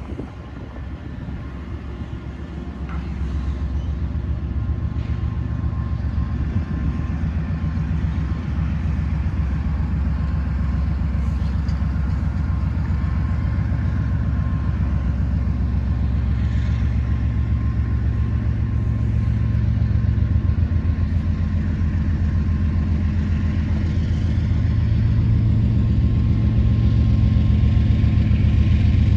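Diesel locomotives on a freight train powering up to start the heavy train from a stop: a low engine rumble that gradually grows louder.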